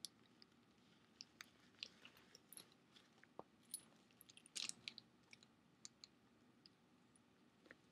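Faint handling of a handbag: a scatter of small clicks and light rustles as its strap clips and clutch are fitted, with a short cluster of clicks just past the middle.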